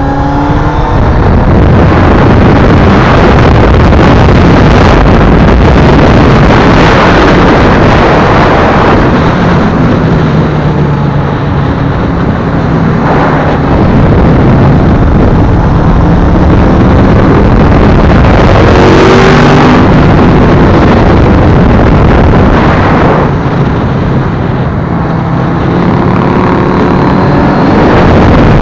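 Onboard sound of a Honda CBF1000's inline-four engine pulling hard, rising in pitch several times as it accelerates, mostly buried under loud, distorted wind rush on the camera microphone.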